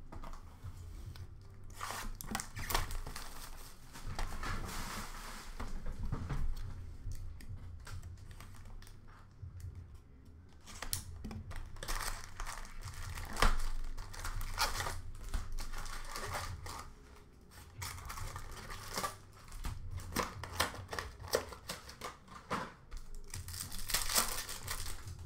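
Upper Deck Ice hockey card packs being torn open by hand, their wrappers crinkling and ripping in an irregular run of rustles and sharp tears, with cards handled and shuffled in between.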